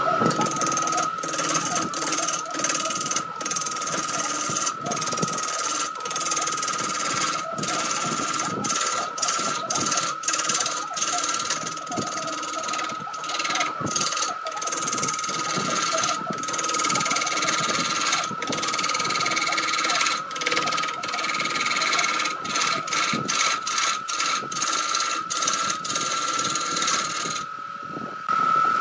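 Wood lathe running with a steady high whine while a hand-held gouge cuts a spinning wooden blank, with irregular scraping ticks and knocks as the tool bites. Near the end the cutting stops for about a second and only the whine is left.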